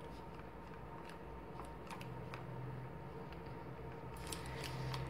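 Faint rustling and light clicks of thick cotton macramé cord being handled and pulled as a square knot is tied, with a small cluster of clicks about four seconds in, over a faint steady hum.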